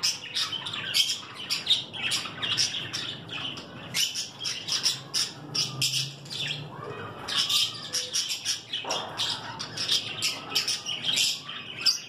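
Small caged parrots, budgerigars and blue masked lovebirds, chirping and chattering together in a continuous stream of quick, high-pitched chirps.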